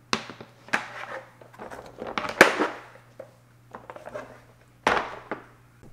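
Hard plastic kayak-crate panels knocking and clacking together as they are fitted into each other by hand: a string of sharp knocks, the loudest about two and a half seconds in and another near five seconds.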